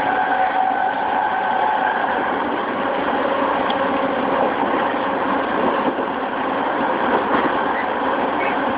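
JR East E217 series commuter train, unrenewed with its original Mitsubishi GTO VVVF inverter, heard from inside a motor car running at speed. The wheel and rail noise is steady, with steady tones from the traction motor drive.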